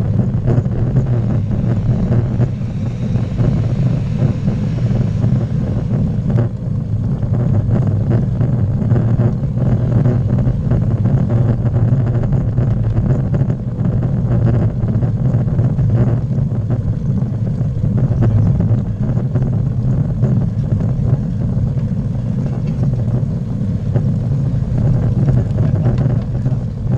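Steady low rumble of wind buffeting the microphone of a camera riding on a road bike as it climbs, with no speech or music.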